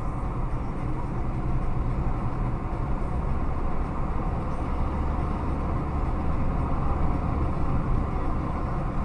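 Car driving steadily along an open road, heard from inside the cabin: an even low rumble of engine and tyres on asphalt.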